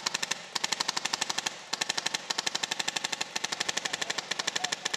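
Airsoft Stoner light machine gun on a Polarstar Jack HPA engine firing full-auto, rapid evenly spaced shots in long bursts with brief pauses between them, about four bursts in all.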